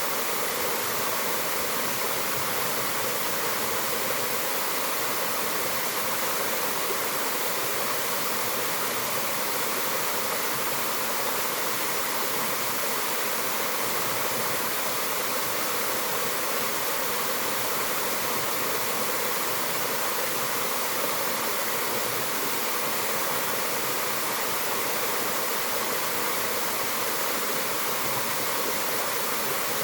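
Mountain waterfall pouring steadily: a constant, even rush of falling water.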